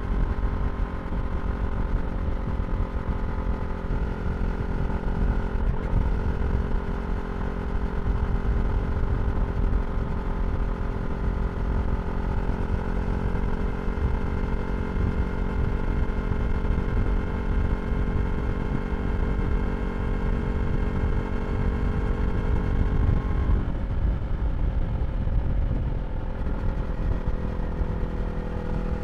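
2023 Yamaha R3's parallel-twin engine through an Akrapovič slip-on exhaust, running at a steady speed while riding. The engine note drops slightly about three-quarters of the way through.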